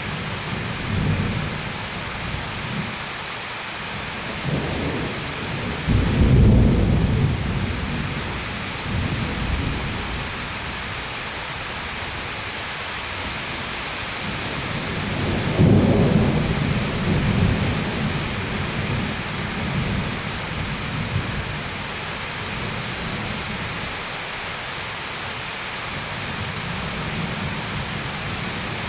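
Thunderstorm: steady heavy rain hissing, with two loud rolls of thunder rumbling low, one about six seconds in and another about sixteen seconds in, each swelling and fading over several seconds.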